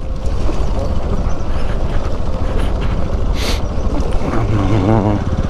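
Bajaj Pulsar NS200 motorcycle running on the move, with heavy wind rush on the microphone. A short hiss about three and a half seconds in.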